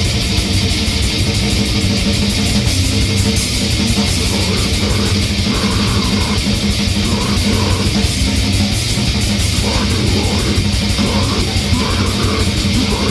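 Death/grind metal music: guitar over a fast, even beat.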